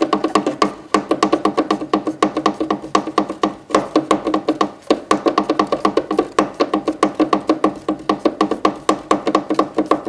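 A finger tapping quickly and rhythmically on a hard surface, several knocks a second, each with a ringing, woodblock-like tone: the beat a peach-faced lovebird bobs and dances to.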